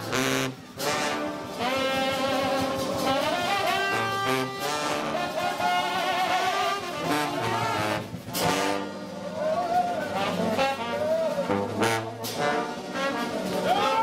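Trombone shout band playing: a massed trombone section with a sousaphone on the bass line, the lead trombone notes wavering in pitch, with short breaks in the playing about half a second in and near the end.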